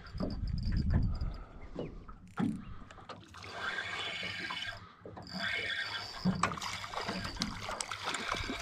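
A whiting being reeled in to the side of a small aluminium boat: the fishing reel being wound, with scattered clicks and water splashing at the surface as the fish comes in. A low rumble fills the first second or so.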